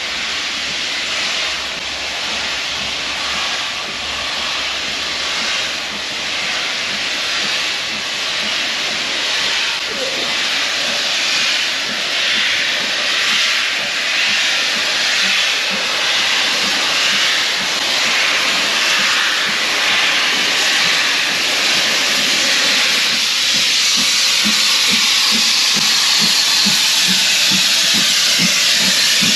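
Jacobite steam locomotive passing close by, a loud steady hiss of steam. Near the end the hiss grows louder and a regular beat comes in at about two a second.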